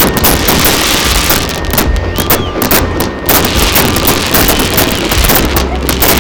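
Fireworks going off in a dense, continuous barrage of overlapping bangs and crackling.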